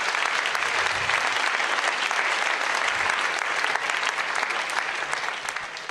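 Live audience applauding, a dense steady clapping that dies away near the end.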